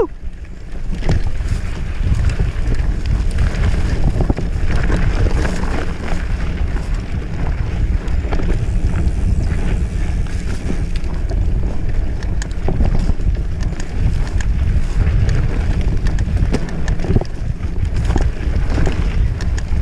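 Wind rumbling on the microphone of a mountain bike's riding camera, with the bike rattling over a rough dirt singletrack and scattered clicks and knocks from the frame and drivetrain.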